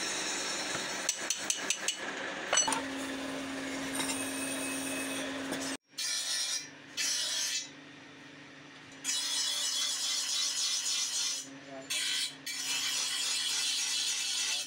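A small hand tool scrapes and smooths moulding sand in a casting flask, with a few sharp clicks about a second in. After a sudden break near the middle come three stretches of hissing, rasping strokes, one to two seconds each.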